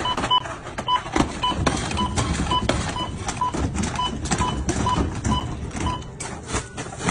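Supermarket checkout barcode scanner beeping about twice a second as a cashier rapidly scans groceries, with boxes and bottles knocking and clattering on the counter. The beeps stop about six seconds in.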